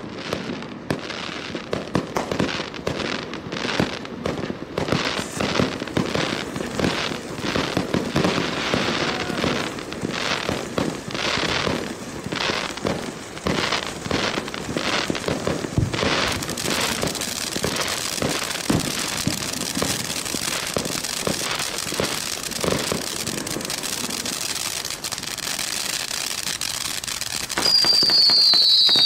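A 1.4G consumer fountain firework (UN0336) burning: a continuous spray of sparks with dense crackling throughout. Near the end the sound gets louder and several high whistles start together, falling in pitch.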